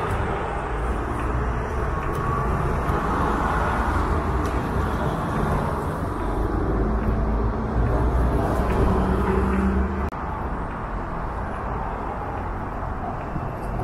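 Road traffic at a city bus stop: diesel city buses and cars running and passing close by as a steady low rumble. The rumble swells with a steady engine hum a few seconds before it briefly drops off, about ten seconds in.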